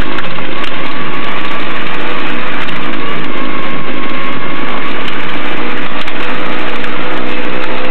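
Truck-mounted hydraulic snowblower at work throwing snow, driven by a Ford 2.3-litre inline-four engine: a steady, loud engine and blower din with a few steady engine tones through it, loud enough to overload the recording.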